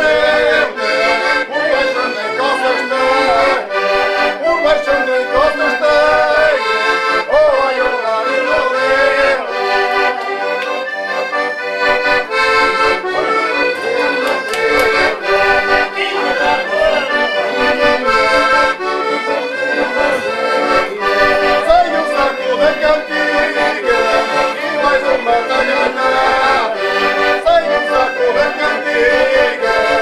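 Button accordions, one of them a Hohner, playing a Portuguese folk tune together without a break.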